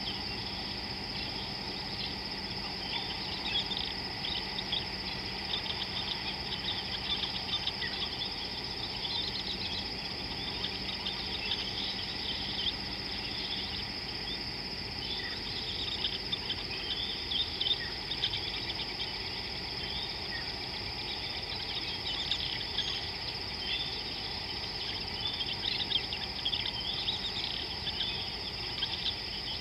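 A steady high-pitched insect drone, with frequent quick bird chirps over it throughout.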